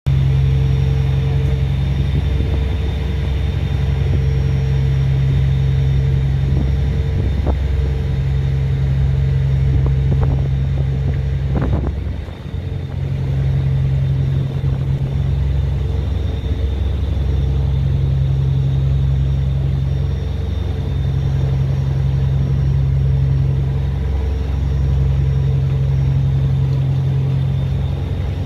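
Car ferry's engine running steadily while underway, a low drone with a hum that wavers in strength.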